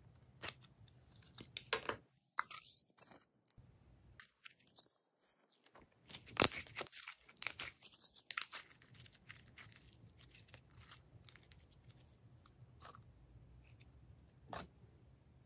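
Slime being handled and mixed, with irregular crunchy crackles and sharp clicks, busiest and loudest a little past halfway.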